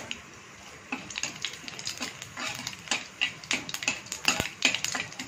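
Steel slotted spatula stirring panch phoran seeds and a dried red chilli in hot oil in a wok, making irregular clicks and scrapes against the pan over a faint sizzle.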